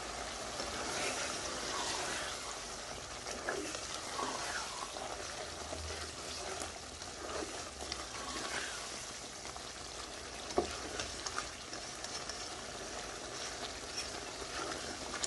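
Lamb karahi frying in a silver karahi, a steady sizzle, with a few short clinks of a utensil against the pan.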